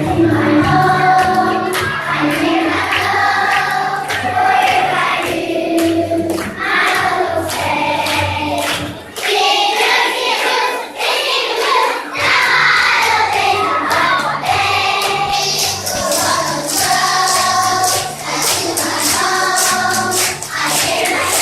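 A group of voices singing a song as a choir over a backing track with a bass line and a steady beat. The bass drops out for a few seconds midway, then returns.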